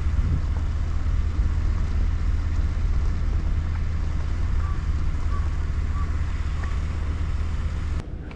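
Wind buffeting the microphone outdoors, a steady low rumble with a haze of noise over it, cutting off abruptly near the end.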